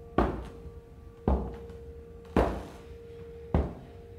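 Footsteps on a hard floor: four slow, evenly spaced steps about a second apart, over a faint steady hum.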